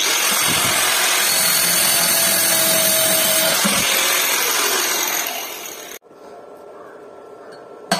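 Angle grinder with a green abrasive disc running against a rusty steel plate, scouring the surface clean. It runs steadily for about five seconds, then winds down and cuts off about six seconds in, leaving only faint background noise.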